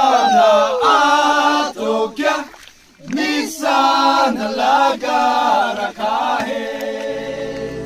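A group of young men singing together without accompaniment, in phrases, with a short break about a third of the way through.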